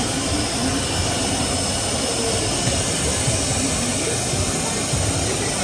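Steady background noise with faint, indistinct voices underneath.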